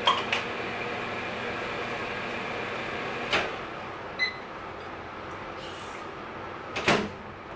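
Over-the-range microwave oven humming, then its door clicking open about three seconds in, a short beep, and the door shutting with a clunk near the end. There are a couple of light clicks at the very start.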